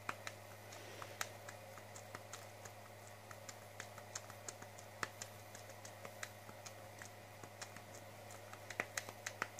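Faint clicks of remote-control buttons being pressed to step across a satellite receiver's on-screen keyboard, an uneven couple of presses a second that come quicker and louder near the end. A steady low hum runs underneath.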